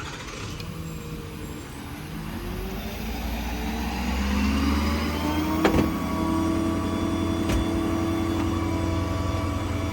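6.7 Power Stroke V8 turbo-diesel engine rising steadily in speed over several seconds, then holding at a raised steady speed. A sharp click is heard about midway.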